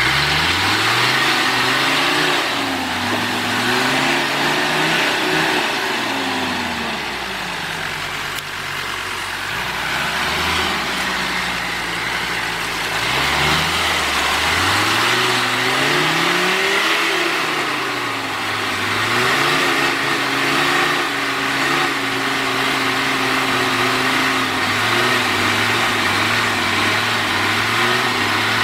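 Off-road vehicle's engine revving up and dropping back several times while driving, under load and off load, then holding a fairly steady pitch through the last third.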